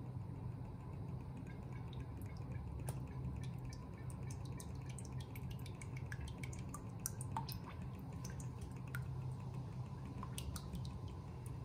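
Cooking oil poured in a thin stream into a cast-iron kadai, with many small dripping plinks as it pools, over a steady low hum from the lit gas burner.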